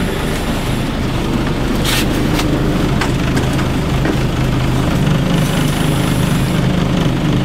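Fishing boat's engine running at a steady idle hum, with a couple of brief clicks, the clearest about two seconds in.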